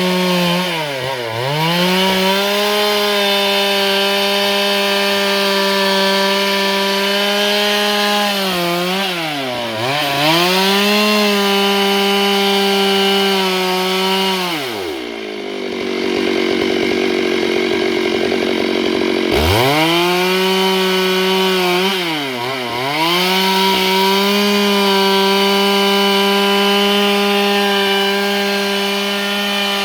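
Stihl MS 382 two-stroke chainsaw running at high revs while cutting dry eucalyptus, its pitch sagging briefly several times as it bogs under load in the cut. About halfway through it drops to a low speed for a few seconds, then revs back up and keeps cutting.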